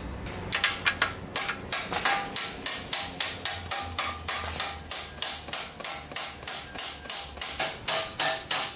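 Steel hammer striking a bolt over and over to drive it out of a quad's frame: rapid, even blows about three a second, each one ringing.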